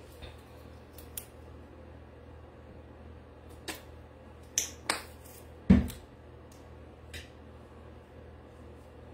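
Scattered clicks and taps from a craft paint bottle being handled on a worktable, with one louder knock a little past halfway.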